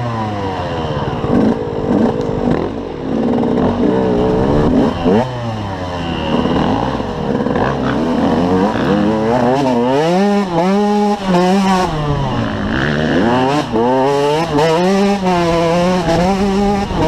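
KTM 125 EXC two-stroke enduro engine under changing throttle while riding a dirt trail, its pitch rising and falling over and over as the rider opens and closes the throttle.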